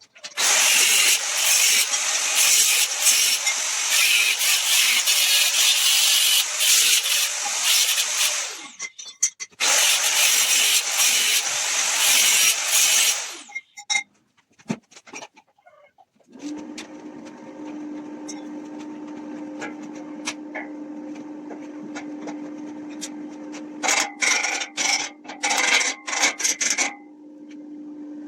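Woodworking on the bench: two long spells of loud rasping, abrasive friction on wood. After a short pause a quieter steady motor hum with one constant low tone sets in, with a scatter of sharp scrapes and knocks near the end.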